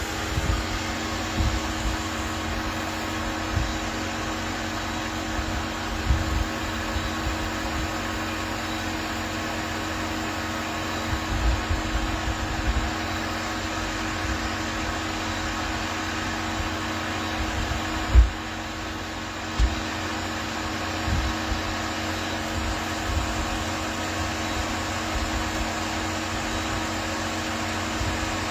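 A steady, fan-like mechanical hum with a couple of fixed low tones, broken by scattered low bumps and a sharp thump about 18 seconds in.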